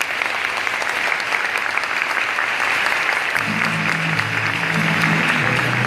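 Audience clapping steadily. About three and a half seconds in, music starts under the applause with long held low notes.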